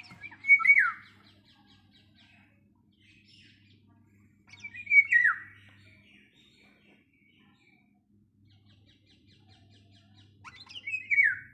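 A bird calling three times, each call a loud note sliding down in pitch, about five seconds apart, with fainter quick chirps repeated between the calls.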